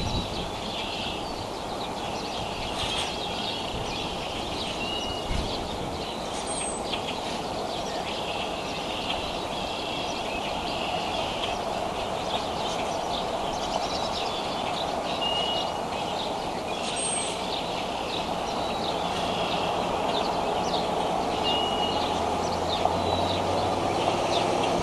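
Steady outdoor background noise with short, high bird chirps every few seconds; a low engine-like hum comes in near the end.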